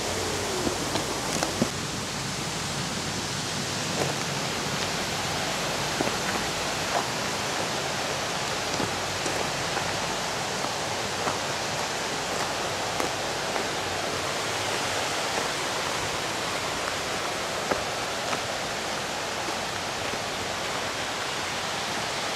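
Steady rush of falling water, with a few light clicks scattered through it.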